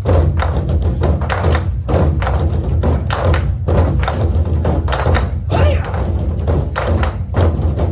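Korean barrel drums (Goguryeo buk) beaten hard in a fast, driving rhythm: many deep booming strokes with sharp attacks, close together.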